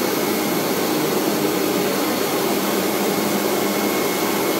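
Flatbed digital CNC cutter plotter running with a steady whirring hum, a faint high whine over it.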